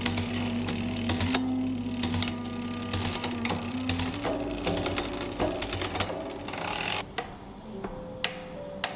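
Mountain bike's rear hub and drivetrain ticking rapidly as the rear wheel and cassette spin with the cranks turned by hand, over background music. The ticking stops about seven seconds in, leaving the music.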